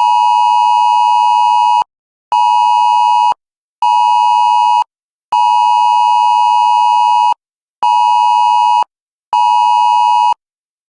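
Wireless Emergency Alert attention signal for an Amber Alert: a loud two-pitch alert tone in a long-short-short cadence, one two-second tone followed by two one-second tones with short gaps, played twice.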